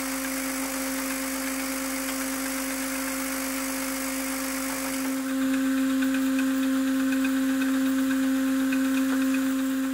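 Thread rolling machine for fluted steel nails running steadily: a constant mechanical hum over hiss. About five seconds in it grows louder and a faint rapid ticking joins in.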